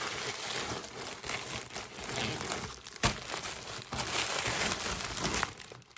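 Packaging and clothing crinkling and rustling as they are handled and unwrapped, with a sharp crackle about three seconds in; the rustling dies away near the end.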